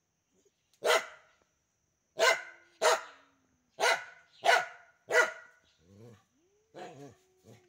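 Dog barking: six loud, sharp single barks in about four seconds, then a few quieter barks near the end.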